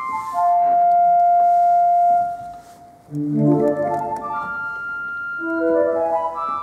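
Viscount Physis digital organ playing on its harmonic flute stop: a long held note, a short lull, then a rising run of notes into more held notes.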